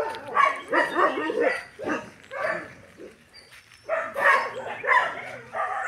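Street dogs in kennels barking and yelping in quick repeated bursts, with a brief lull about three seconds in.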